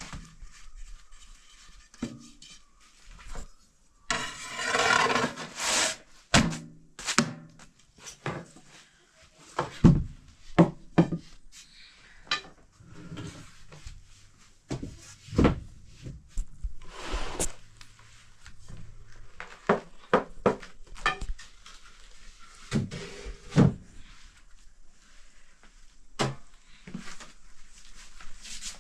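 Irregular knocks and clatters of objects being handled and set down, with a longer rough scraping rush about four seconds in.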